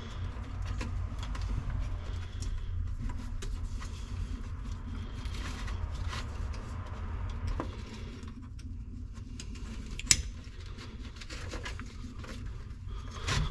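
Rustling and handling noise with scattered light clicks over a steady low rumble; one sharper click about ten seconds in and another near the end.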